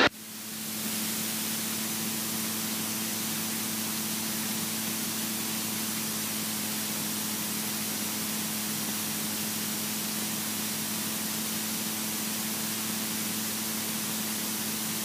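Steady hiss of cockpit noise in a Robin DR400 light aircraft in level flight, with a low steady hum under it. The hiss dips at the very start and settles back to a steady level within about a second.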